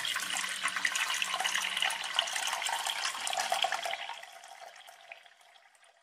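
Water trickling and splashing from a thin clear plastic tube into a small tank. The flow dies away over the last two seconds.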